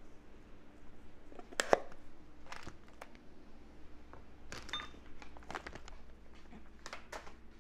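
A spoon tapping and clinking against a bowl as sauce ingredients are spooned in: about six light knocks, the loudest under two seconds in, one with a short ringing tone near the middle.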